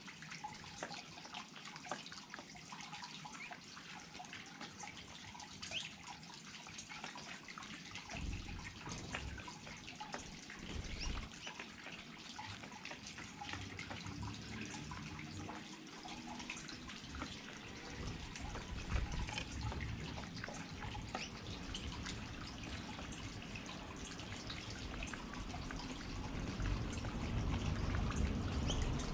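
Small garden waterfall trickling and splashing steadily, with many little drips. A low rumble comes in about eight seconds in and grows louder near the end.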